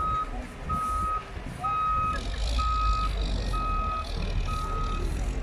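A large truck's reversing alarm beeping in a single steady tone, about once a second, over the low rumble of its running engine.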